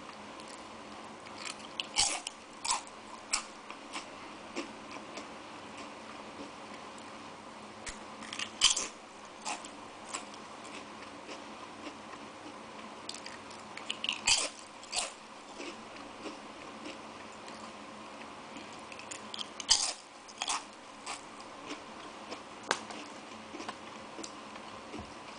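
Crisp Tongari Corn cone-shaped corn snacks being bitten and chewed: bursts of sharp crunches about every six seconds, with lighter crunching between.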